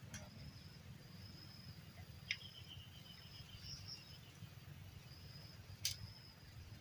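Lakeside ambience: an animal's high, steady note repeated in short phrases about once a second, with a low rumble underneath. Two sharp clicks, the loudest sounds, come about two seconds in and again near six seconds.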